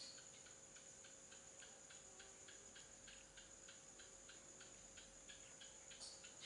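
Faint, rapid ticking, about four ticks a second, over a steady high-pitched whine.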